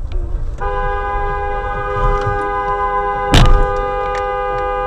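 Car horn held in one long, steady two-tone blast starting about half a second in, and about three seconds in a loud bang as the cars collide.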